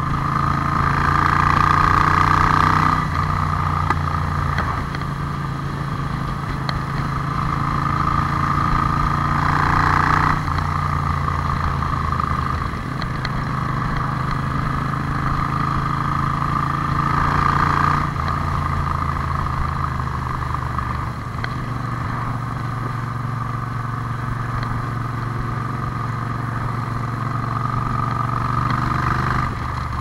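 Moto Guzzi V7 Classic's air-cooled transverse V-twin running under way through twin megaphone exhausts, heard from the rider's seat. It pulls harder and louder three times, and each pull ends in a sudden drop as the throttle closes.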